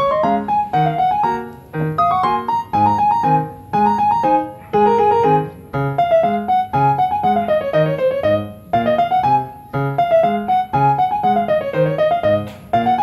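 Background music: a keyboard melody over a steadily repeating bass line.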